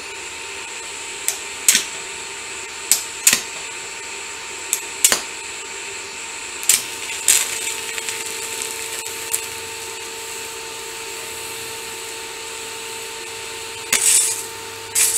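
TIG welding arc tacking thin steel tubing with the welder set between 50 and 65 amps: a steady hum with a hiss, broken by sharp cracks every second or so and a louder burst near the end.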